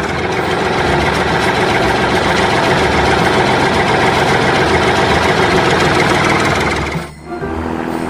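Engine sound effect for an animated wheel loader, running steadily as it drives along. About seven seconds in it breaks off and a different vehicle engine sound takes over.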